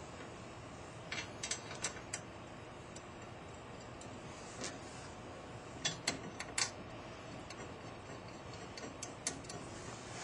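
Scattered light metallic clicks and taps, a few at a time with pauses between, from small screws and metal plates being handled and fitted while the extension plate is fastened to the punch module's back plate with Allen screws.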